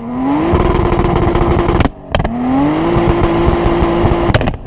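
Turbocharged V6 car engine revved twice while stationary. Each rev climbs, then holds at a steady high pitch for about two seconds, and ends in a few sharp pops when it drops off.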